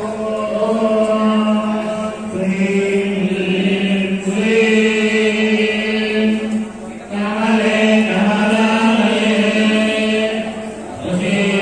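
Devotional mantra chanting for a kumkuma puja: voices recite verses in long phrases held on a steady pitch, pausing briefly every three to four seconds.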